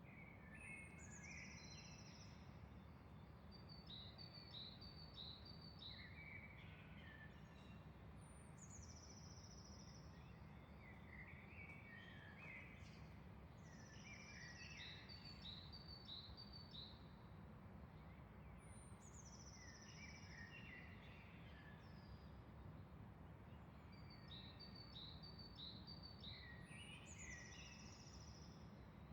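Faint songbird singing a short phrase: a high note sliding down, then a quick run of chirps and some lower warbled notes. The phrase repeats about every eight to ten seconds over a steady low background hum.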